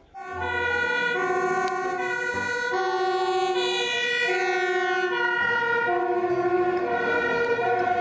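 Dutch fire engine's two-tone siren, alternating steadily between a high and a low note, with the vehicle on emergency response.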